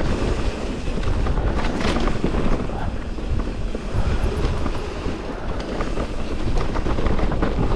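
Specialized Turbo Levo electric mountain bike descending a dirt trail: low rumble of the tyres over the ground, the bike rattling and knocking over bumps, and wind buffeting the microphone.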